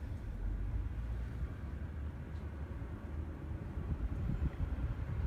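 Suzuki Cervo exhaust running steadily with a low-pitched note, a honeycomb flange silencer fitted in the muffler to quiet it.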